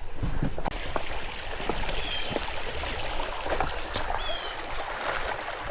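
Creek water running, a steady rushing hiss, with a few light clicks and knocks over it.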